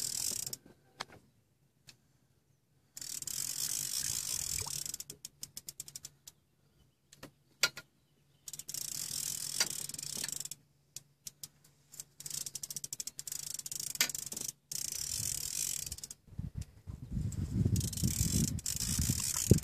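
Fishing reel drag buzzing in several separate runs, each a second or two long, with bursts of rapid clicks as it starts and stops: a large striped bass pulling line off against the drag. A low rumble comes in near the end.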